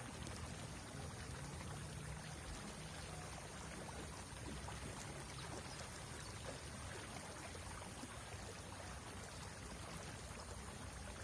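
River water flowing steadily, a faint even rush.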